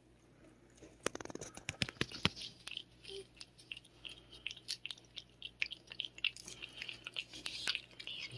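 Cat licking a paste treat from the end of a squeeze tube: quick, irregular wet lapping clicks that start about a second in, densest over the next second or so, then go on more sparsely.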